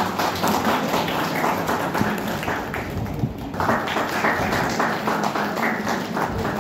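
Audience applauding, many hands clapping. It starts suddenly and swells about three and a half seconds in.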